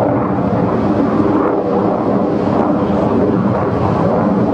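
HAL Tejas light combat aircraft flying overhead, its jet engine noise a loud, steady, dense rumble.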